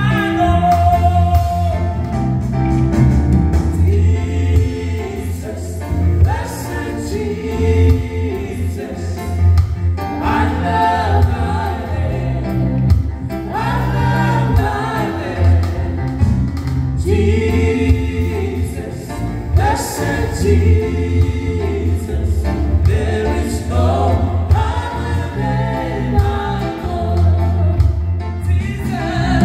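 Live gospel praise-and-worship song: a woman singing lead into a microphone with a man's voice joining, over keyboard and guitar accompaniment, amplified through PA speakers.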